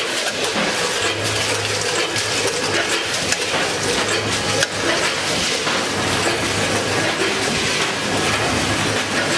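Multihead weigher and vertical packing machine running on fried fish skin: a steady machine noise with frequent sharp clicks, and a low hum that sets in about a second in.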